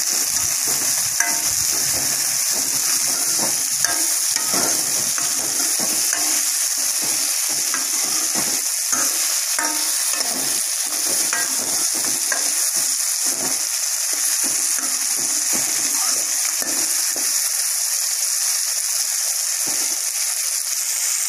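Shallots, tomatoes and dried red chillies sizzling in hot oil in a metal kadai while a spatula scrapes and stirs them. The stirring stops about three-quarters of the way through and the steady sizzle carries on.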